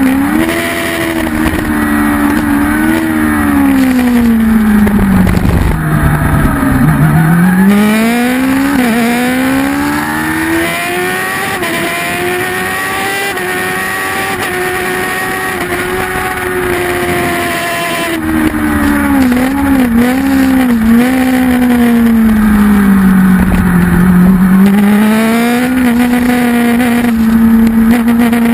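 Kawasaki ZX-10 superbike's inline-four engine at race pace, heard from the bike itself: the engine note drops in steps twice as the bike slows for corners and climbs slowly as it accelerates away each time. A low rush of wind runs under it, heaviest where the revs are lowest.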